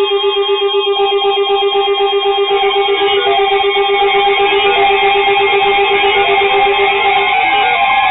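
Several weather alert radios sounding their electronic alarm tones at once, signalling an incoming severe thunderstorm warning. A rapid, steady beeping rides over a chord of held tones, and more tones join about two and a half seconds in.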